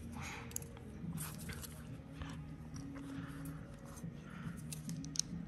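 Quiet handling noise: scattered light clicks and rustles over a faint steady low hum.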